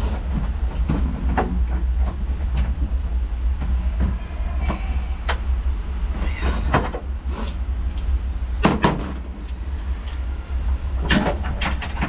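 Scattered clicks, knocks and light scrapes of hand tools and interior trim pieces being worked loose inside a car's centre console, over a steady low rumble.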